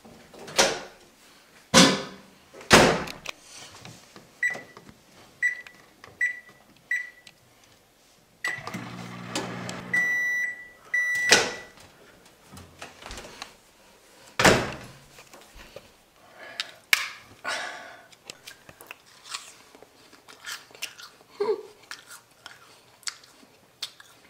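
Over-the-range microwave oven being worked. Its door clunks a few times, four short keypad beeps sound, and it hums for a second or two, followed by a longer beep. The door then clunks open and bangs shut, with light handling clicks afterwards.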